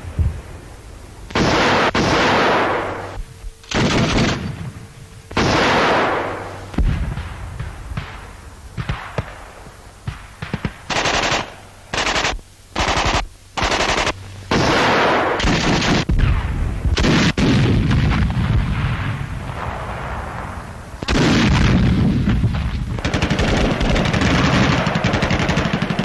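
Gunfire on a newsreel soundtrack. In the first few seconds there are three loud reports, each with a long fading echo. Then come short machine-gun bursts that stop and start, and from about 21 seconds in the firing is almost continuous.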